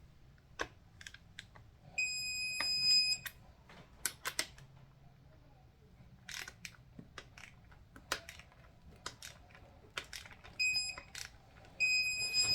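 Electronic torque wrench beeping as oil pump bolts are torqued to the set 18 ft-lb: a steady high beep about two seconds in, then a short beep and a longer one near the end, with scattered clicks of the wrench and tools in between.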